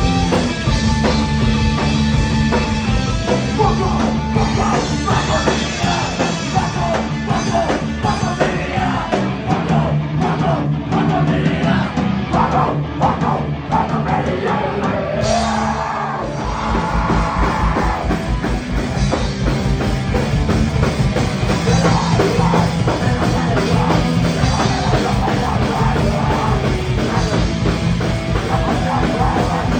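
Punk band playing live: distorted electric guitars, bass guitar and drum kit, with a singer shouting into a microphone. About nine seconds in, the bass and kick drum drop away for several seconds, and the full band crashes back in about sixteen seconds in.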